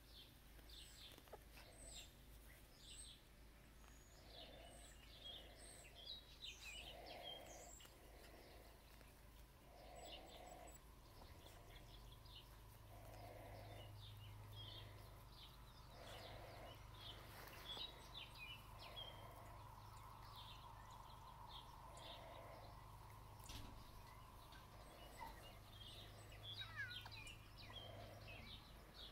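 Faint outdoor ambience: scattered small bird chirps, with a soft low call repeating about every second and a half.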